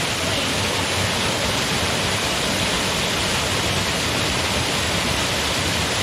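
Waterfall pouring into a rock pool: a steady, unbroken rush of water splashing onto the pool's surface.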